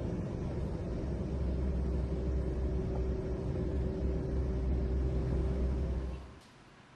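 Vehicles queued at a fuel station, a steady low traffic rumble with a faint steady hum. It cuts out about six seconds in.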